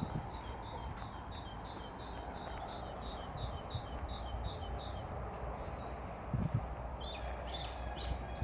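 Outdoor ambience with a bird chirping in a quick repeated run of about three chirps a second, stopping about five seconds in, over a steady low rumble. A couple of soft thumps and a few other chirps come near the end.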